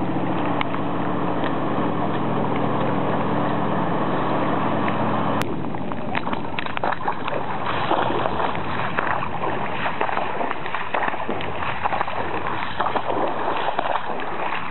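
A steady low mechanical hum over water noise for about five seconds. Then, after a sudden cut, irregular sloshing splashes of feet wading step by step through floodwater covering the street.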